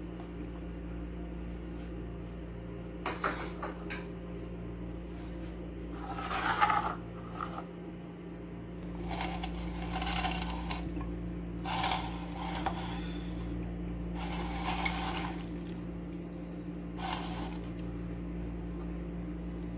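A serving spoon stirring and scraping macaroni salad around a bowl, in separate bouts of a second or so, the loudest about six seconds in. A steady low hum runs underneath.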